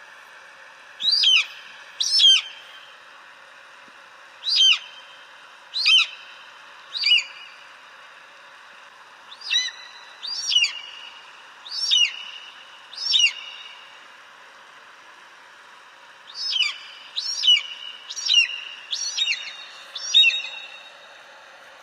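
An eagle calling: a series of short, high, piercing cries, each falling in pitch, in three groups of about five, four and five calls, over a steady background hiss.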